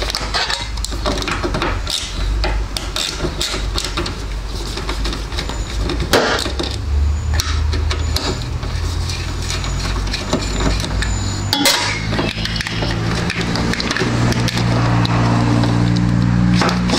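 Clicking and clattering of hands working plastic wiring connectors and a screwdriver while unbolting and unplugging the stock ignition coil/CDI unit of a Polaris Sportsman ATV, many small knocks and clicks throughout. A low steady drone runs underneath and shifts pitch a few times.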